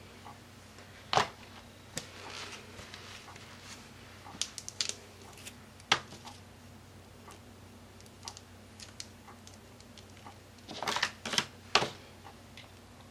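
Scattered sharp clicks and taps of stamping supplies being handled: a stamp inked on a StazOn ink pad and pressed onto a paper journal page. The loudest clicks come about a second in, around six seconds, and in a short cluster near the end.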